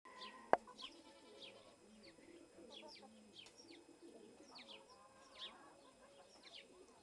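Birds chirping: many short, high, falling chirps repeated throughout, with a single sharp click about half a second in.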